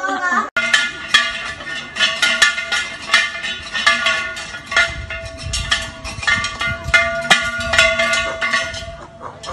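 Music with fast percussion and held bell-like ringing tones.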